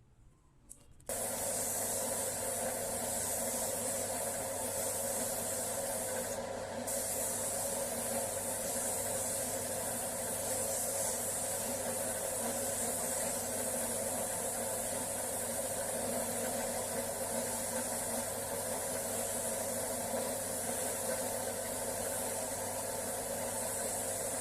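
A power tool's steady abrasive rubbing over a low, even motor hum, starting suddenly about a second in after a few faint clicks.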